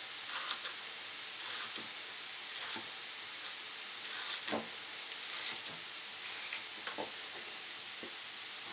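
Carrot slices frying in a little oil in a pan, a steady sizzle. Over it come a few irregular knocks of a chef's knife chopping celery on a plastic cutting board.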